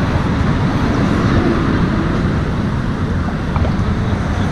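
Steady road traffic noise from cars driving on the roadway just below the walkway, an even low rumble.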